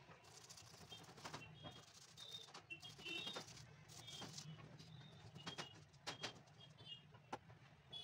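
Faint, irregular scrubbing strokes of a hand brush worked over a shoe sole, with small birds chirping in short high notes in the background.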